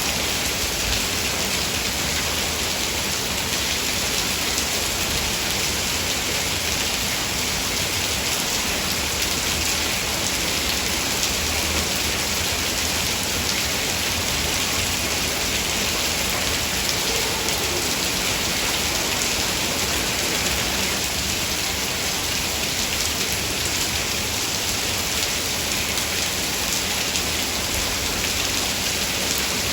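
Heavy rain falling steadily, an even hiss with no breaks or thunder.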